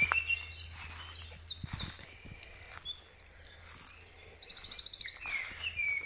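Small songbirds singing and chirping, with two fast trills of rapidly repeated high notes, one about two seconds in and another about four and a half seconds in.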